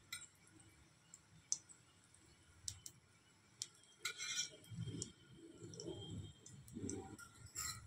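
Faint, scattered clicks and light scrapes of a spoon against a non-stick tawa as oil is dabbed around the edges of a cooking dosa.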